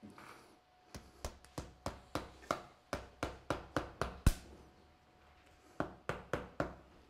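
Repeated sharp knocks, about three or four a second: roughly a dozen over three seconds with the loudest at the end of the run, then four more after a short pause.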